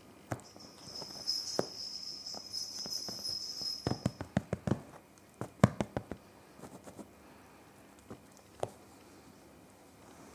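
A kitten scuffling with a feather wand toy on a fabric couch: scattered soft taps, knocks and scrapes of paws, claws and the wand's stick, bunched most thickly around the middle.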